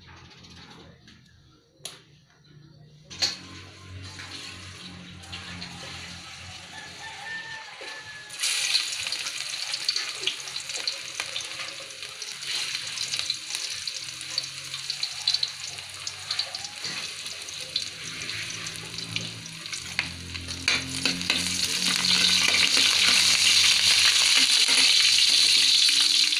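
Chopped garlic sizzling in hot oil in a wok. The frying hiss starts faint after a couple of sharp clicks, jumps up about eight seconds in, and grows louder again near the end.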